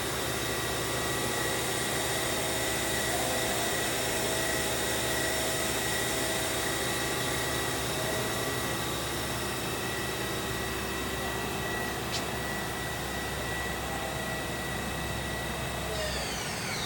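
Mazak MTV-515/40N CNC vertical machining center running, a steady high whine over a hum of motors and fans. Near the end the whine stops and several tones fall away as it winds down.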